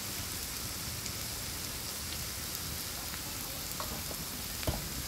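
Sliced onions frying in oil in a large kadai over a wood fire: a steady sizzle, with one sharp knock near the end.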